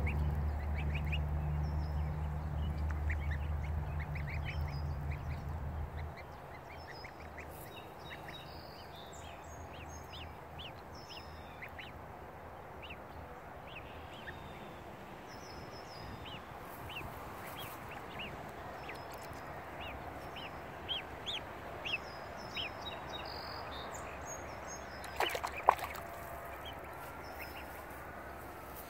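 Domestic goslings peeping: many short, high, rising calls scattered throughout. A low rumble stops about six seconds in, and a few sharp knocks come near the end.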